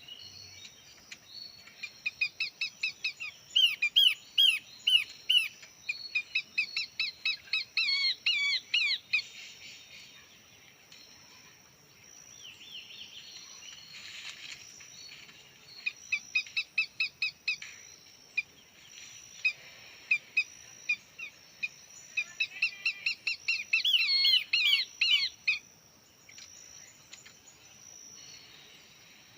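Songbirds calling in bouts of fast repeated chirps, several strings of quick high notes over about half a minute, with a steady high-pitched tone underneath.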